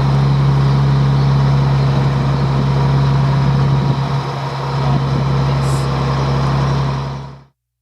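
A heavy vehicle's engine running steadily with a constant low hum, then fading out near the end.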